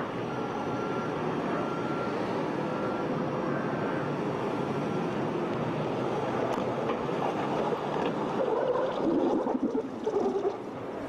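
Diesel engine of a Case 580 backhoe loader running as it drives past, louder and rougher about eight to ten seconds in as it comes close. A faint beep repeats about once a second in the first half.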